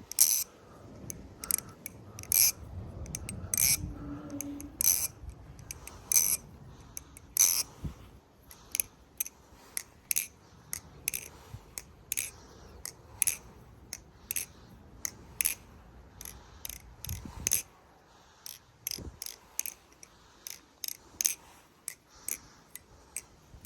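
LDY Sirius V3 balisong being flipped, its latchless 7075 aluminium channel handles swinging on bushing pivots: a long run of sharp metallic clicks and clacks, irregularly spaced at roughly two a second, some much louder than others.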